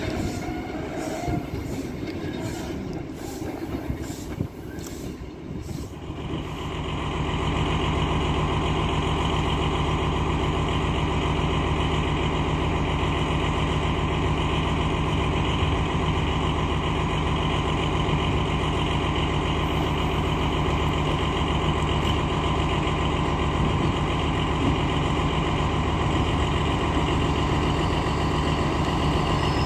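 Passenger coaches rolling away over rail joints, a regular clicking that fades over the first few seconds. From about six seconds in, a steady hum of train equipment running, a low drone with several held tones, at an even level.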